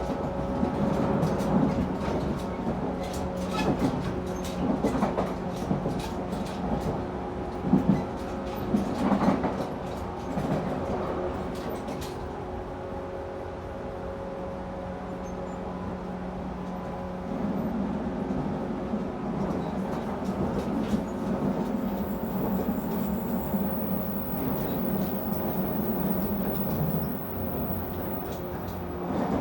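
Running sound of a JR 113-series electric multiple unit heard in its motor car, MoHa 113: a steady hum with wheels clicking over rail joints, growing louder again in the second half.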